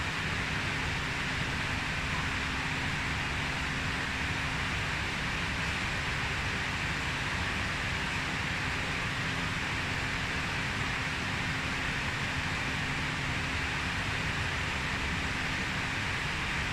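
Steady fan noise: an even hiss with a faint steady hum underneath, holding at one level throughout.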